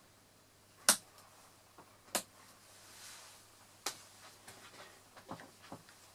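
A few sharp, separate clicks at irregular intervals, the loudest about a second in, over a faint steady hum.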